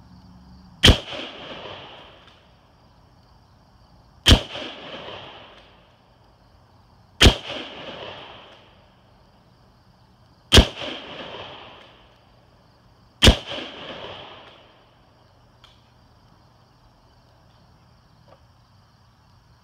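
Five shots from a Ruger Gunsite Scout bolt-action rifle in .308, spaced about three seconds apart as the bolt is worked between them, heard from beside the target downrange. Each is a sharp crack followed by a rumbling echo that dies away over a second or so.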